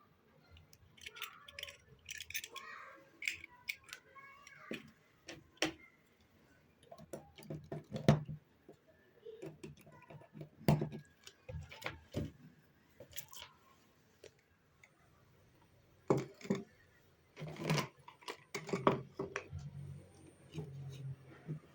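Small household objects being handled: irregular clicks, taps and light rustling, with a few sharper knocks about 8, 11 and 18 seconds in.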